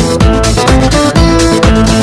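Upbeat background music with a steady beat and short plucked notes.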